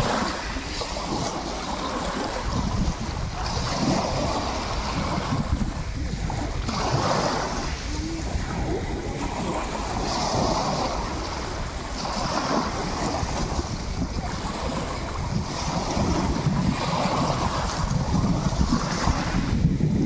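Small sea waves breaking on a pebble shore and washing back, the surf swelling every few seconds, with wind rumbling on the microphone.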